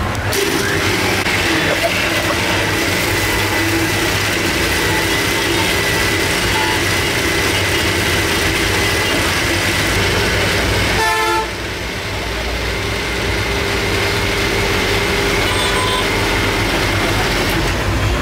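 Electric mixer grinder running, blending a milky drink in its jar, with a steady motor whine. The sound dips briefly a little past halfway and then builds back up.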